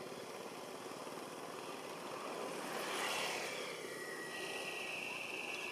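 A small engine running steadily, swelling in level about three seconds in. A steady high-pitched tone joins in after about four seconds.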